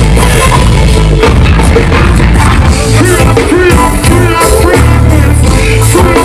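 Live band playing loud music through a concert PA, with a deep, heavy bass. Singing comes in over it about halfway through.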